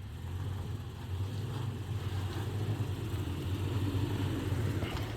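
Toyota Tacoma pickup's engine running with a steady low rumble at low revs as the truck crawls slowly over rocks.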